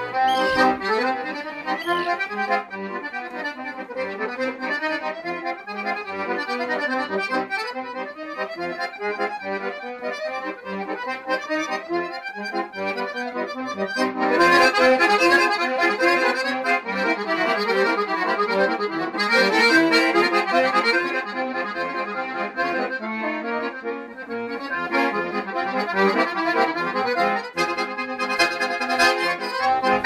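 Instrumental background music with sustained notes, growing fuller and louder about halfway through.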